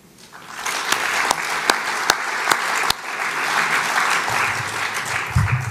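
Audience applauding: many hands clapping, building up in the first second, holding steady and dying away near the end.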